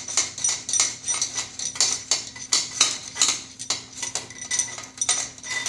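Steel hardware (nuts, washers and a long bolt) clinking and rattling together as it is handled: an irregular run of sharp metallic clinks, a few each second, with a short ring after them.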